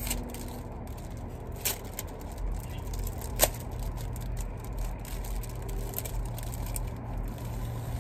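Light crackling and rustling of a plastic rhinestone sticker sheet being handled, with two sharp clicks, the louder one about three and a half seconds in, over a steady low hum.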